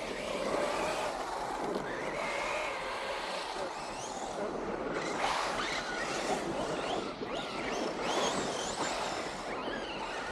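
Radio-controlled model car's motor whining, its pitch rising and falling again and again as it speeds up and slows, over a steady hiss.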